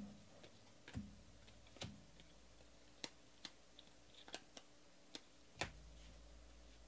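Soft clicks and snaps of trading cards being flipped through a stack in the hands: about a dozen, irregularly spaced. The loudest is a tap about five and a half seconds in.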